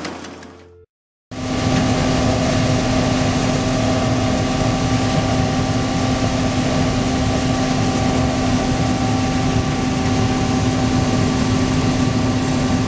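Harvesting machine running steadily, heard from inside its cab: an even engine and drive hum with a few steady tones over it. It starts after a short silent break about a second in.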